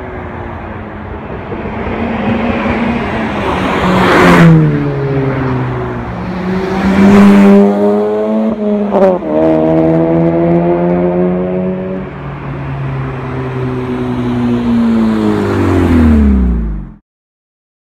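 Exhaust of a 9th-generation Honda Civic Si's 2.4-litre four-cylinder with the muffler deleted, revving up and down. The pitch rises and falls several times, loudest about four and seven seconds in, then drops and cuts off abruptly near the end.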